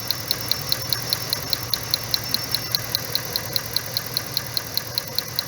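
Engine idling with sharp, evenly spaced snapping ticks about six times a second, typical of one ignition coil firing across a spark tester while the engine runs.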